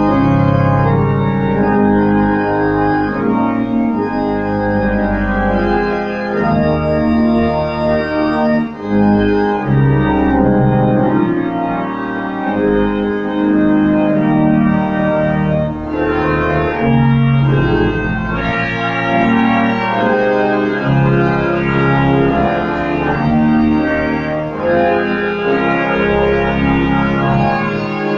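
Church organ playing a hymn in sustained chords that change every second or so.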